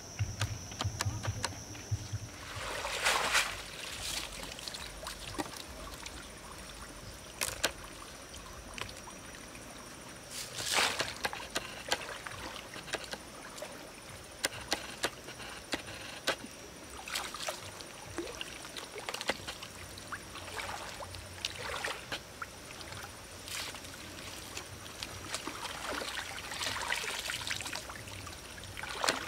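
Shallow river water splashing and trickling as woven bamboo baskets are dipped in and lifted out, the water pouring and draining back through the weave. Several louder sloshes come several seconds apart, with scattered small clicks between them.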